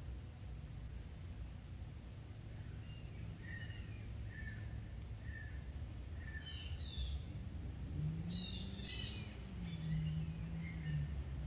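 Small birds chirping in short, scattered notes, busiest about eight or nine seconds in, over a steady low outdoor rumble, with a low hum joining near the end.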